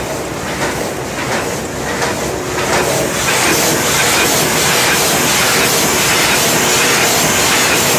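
Four-die four-blow cold forging machine (bolt former) running, its heading strokes making a regular, rapid knocking clatter. About three seconds in it grows louder and a steady hiss joins.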